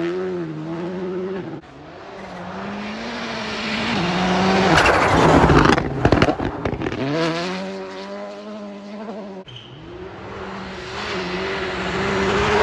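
Rally cars on a snow stage, one after another, their engines revving up and down through gear changes. The loudest moment comes about halfway, when a car slides past close by with a rush of tyre and snow noise.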